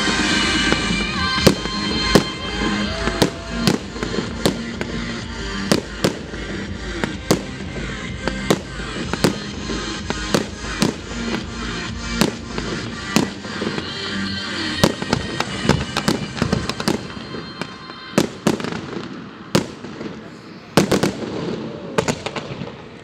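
Fireworks display: a run of sharp bangs from bursting shells, about one a second with a quick cluster near the end, over music with a deep bass beat that drops out about halfway.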